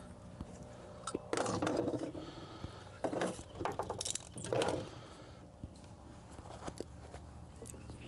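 Electrical wires and a crimping tool being handled: light scrapes and clicks in a few short bursts during the first five seconds, then only faint ticks.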